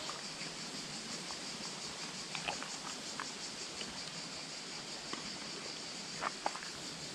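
A steady, high-pitched chorus of insects with a fine, rapid pulsing, over a soft even hiss. A few faint clicks are scattered through it, with two sharper ticks near the end.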